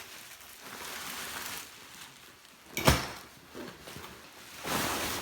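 Packaging and gear being handled: soft rustling of plastic wrapping, one sharp knock about three seconds in with a couple of faint knocks after, and rustling again near the end.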